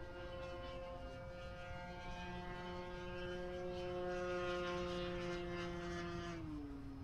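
E-flite Cherokee 1.3m RC plane's electric brushless motor and propeller whining steadily in flight. The whine grows a little louder past the middle, then drops noticeably in pitch about a second before the end.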